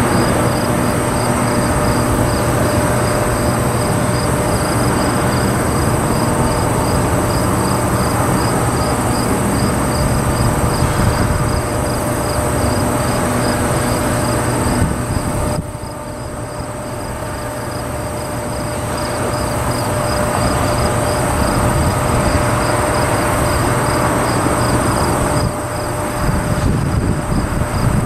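Insects chirping in a rapid, even pulse over a loud, steady low rumble that eases about halfway through and again near the end.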